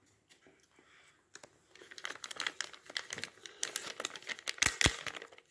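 Clear plastic bag crinkling as it is handled, starting about two seconds in, with the loudest crackles near the end.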